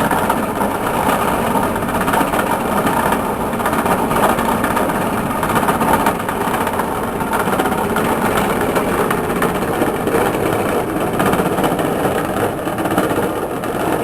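Machine running steadily with a bad pulley: a continuous, even mechanical running noise with no breaks.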